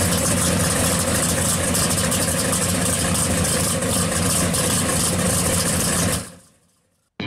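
1970 Plymouth Cuda pro street car's engine idling steadily, then fading out about six seconds in.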